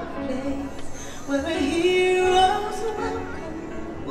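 Fireworks-show soundtrack: music with a voice singing long held notes.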